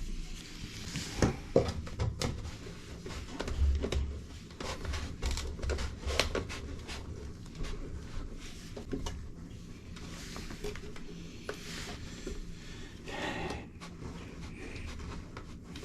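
Scattered clicks, knocks and low thuds of plastic drain pipe and fittings being handled and test-fitted, with a brief rustle near the end.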